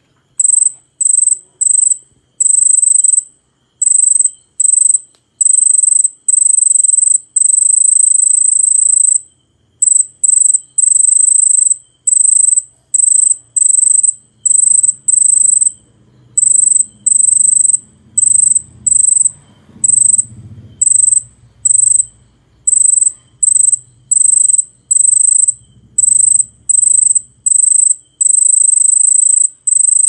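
Cricket singing with its forewings held raised: a high, pure-toned trill in bursts of uneven length, from short chirps to runs of a second or more, with brief gaps between.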